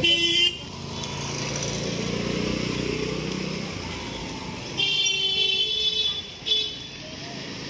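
Street traffic: a motor vehicle runs past, then a vehicle horn honks for over a second about five seconds in, with short honks at the very start and again a little later.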